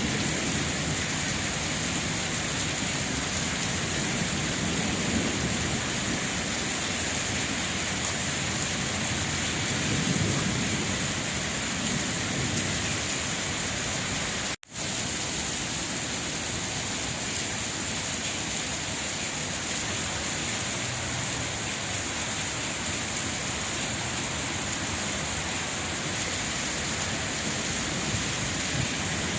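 Steady rain falling, with low rumbles swelling every few seconds. The sound cuts out for an instant about halfway through.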